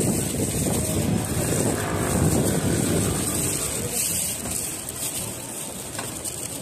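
Street traffic running, mixed with wind rumble on the microphone; it is loudest in the first four seconds, then eases.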